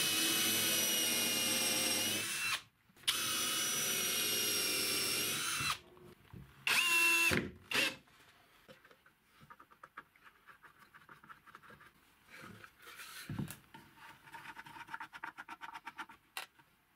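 Cordless drill-driver driving screws into plywood: two steady motor runs of about two seconds each, then a shorter run about seven seconds in. After that come lighter clicks and rubbing of wooden parts being handled.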